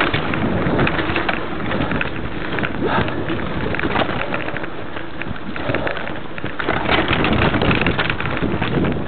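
Mountain bike ridden fast down a rough dirt trail: tyres rumbling over the ground and the bike rattling with frequent small knocks, with wind buffeting the microphone. It grows louder for a couple of seconds near the end.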